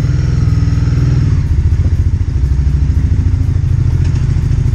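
Motorcycle engine idling close to the microphone with a steady, even low throb. A faint high whine sounds over it for about the first second.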